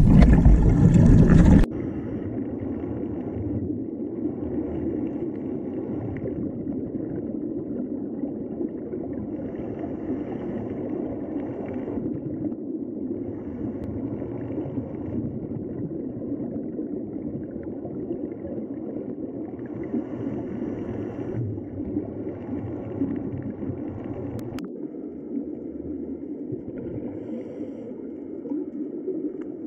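Underwater ambience: a steady low rumbling wash of water, opening with a loud rush of noise that cuts off sharply after about a second and a half, with a fainter higher hiss that comes and goes every few seconds.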